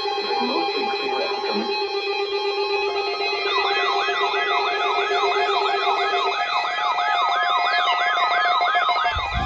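Electronic siren yelping, its pitch sweeping up and down about two or three times a second over steady synthesizer tones, starting about three and a half seconds in after a short keyboard passage. Near the end a long falling tone sets in.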